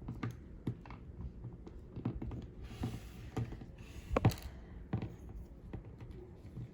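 Small plastic toy figures and parts being handled and fitted together: scattered light clicks and taps, with a couple of brief rustles and a sharper click a little past the middle.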